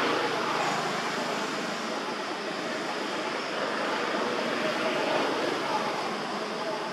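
Steady rushing outdoor background noise with no distinct events standing out.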